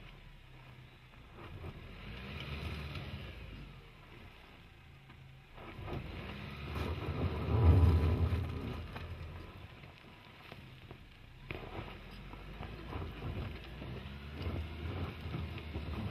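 Isuzu D-Max's 1.9-litre common-rail diesel engine running at low revs as the pickup crawls over a gravel mound, with tyres crunching on loose gravel. The sound swells to its loudest about halfway through, then settles back.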